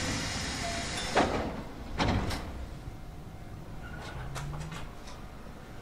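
Electric commuter train doors sliding shut: a loud hiss of air, then two thuds about a second apart as the doors close.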